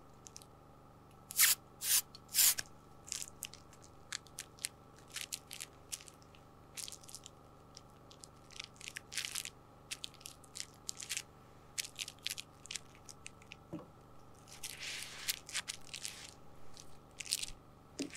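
Three short bursts from an aerosol can of spray adhesive about a second and a half in, followed by scattered crinkling and crackling of Reflectix foil bubble insulation as a fabric tab is pressed onto it, with a longer rustling hiss near the end.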